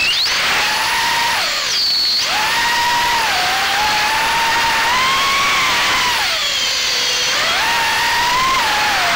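FPV quadcopter's electric motors and propellers whining loudly, the pitch rising and falling with the throttle. It sinks sharply about two seconds in and more slowly again around seven seconds, then climbs back up each time.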